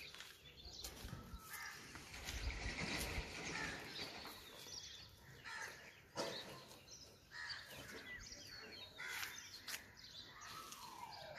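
Outdoor street ambience of birds calling and chirping in short, repeated calls, with a falling call near the end. A low rumble swells for about a second around two seconds in.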